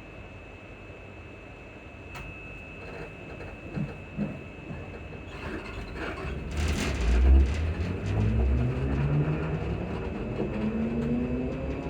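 Class 334 electric multiple unit pulling away. A low rumble with a few heavy thuds starts about six seconds in, then the traction motors' whine rises steadily in pitch as the train accelerates.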